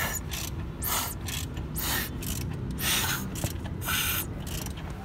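Ratchet wrench clicking in short repeated strokes, about one a second, over a steady low rumble.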